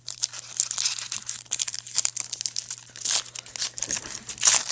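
Crinkling and tearing of a trading-card pack wrapper being opened, a dense run of crackles with louder rips about three seconds in and near the end.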